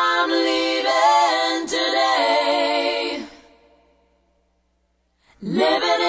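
Song sung a cappella, with voices holding and bending sung notes and no instruments heard. The phrase fades out about three and a half seconds in, and a new sung phrase starts near the end.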